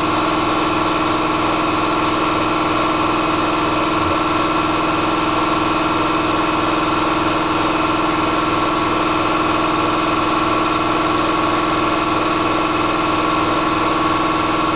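Steady drone of a running machine: an even pitched hum with a faint regular pulse underneath, unchanging throughout.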